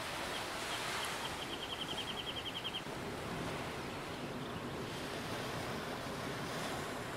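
Steady wash of ocean surf and wind. In the first three seconds a rapid run of short high chirps speeds up, then stops.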